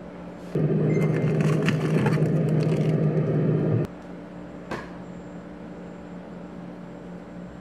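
A freezer compartment of a top-freezer refrigerator being opened and rummaged: a loud, steady rushing noise with crackles of handled frozen packaging for about three seconds, cut off suddenly, then the freezer door shutting with a single click about a second later. A faint steady hum runs underneath.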